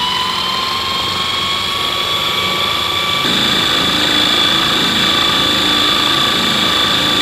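Food processor motor running on high with a steady whine, pureeing crab meat and egg whites into a stiff mousse.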